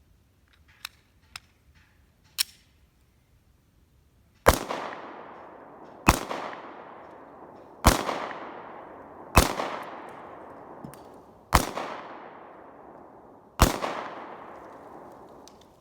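Glock 43 9mm pistol firing six shots of 115-grain ball ammunition, one roughly every two seconds, each followed by a long echo that dies away. Three light clicks come before the first shot.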